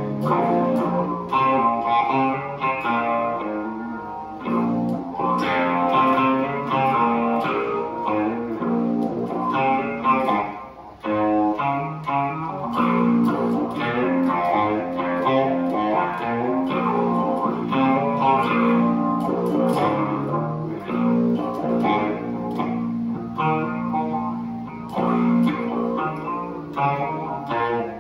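Solo electric guitar playing a new riff-based tune of picked notes and chords, with a short break about eleven seconds in.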